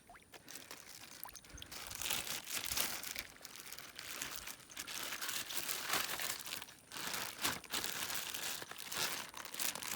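Irregular crinkling and crunching from something being handled close by, with a brief lull about seven seconds in.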